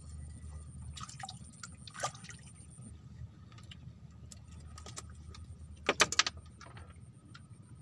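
Water lapping and sloshing around a floating fish-cage raft, with light clicks and knocks from a fishing rod and reel being handled. A quick cluster of knocks about six seconds in is the loudest part.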